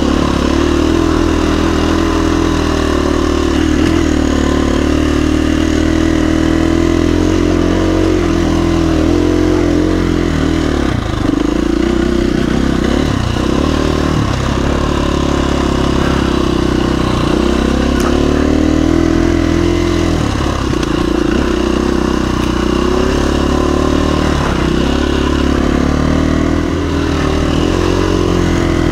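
KTM 350 EXC-F single-cylinder four-stroke dirt bike engine running at a steady trail pace, its pitch dipping briefly and coming back up several times as the throttle is eased off and rolled on again.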